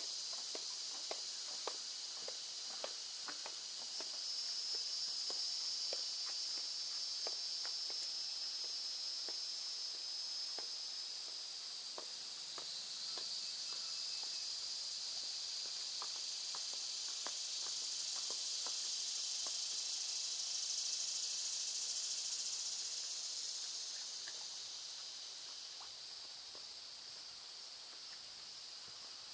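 Steady high-pitched insect chorus that swells and eases slowly, with faint sharp clicks at irregular intervals through the first two-thirds.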